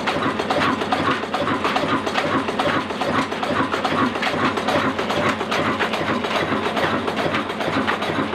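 Old Pakistani-made Ruston Hornsby-type single-cylinder horizontal diesel engine running, a steady, rapid mechanical clatter of knocks from its valve gear and side shaft.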